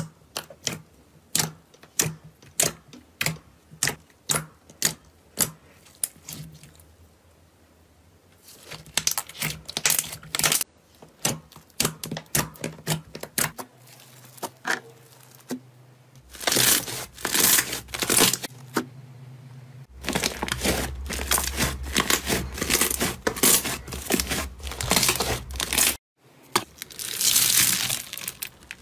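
Hands working sticky slime on a tabletop: a run of sharp wet clicks and pops, about two a second at first, giving way to denser crackling as the slime is pressed, stretched and kneaded. Near the end the slime is mixed with foam beads and crunches and crackles.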